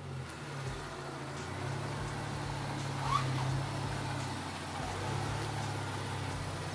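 Car engine idling steadily, a low even hum, with a short rising chirp about three seconds in.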